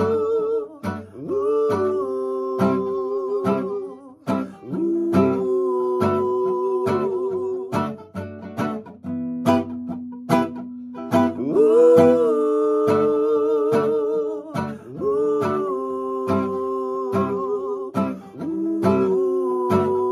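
Acoustic guitar strummed in a steady reggae rhythm, with a wordless sung melody held in long, wavering notes over it.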